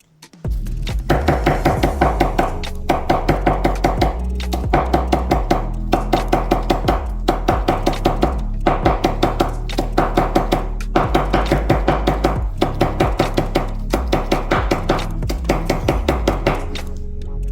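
Fast, steady knife chopping on a cutting board, about five strokes a second with short pauses every second or two, over background music.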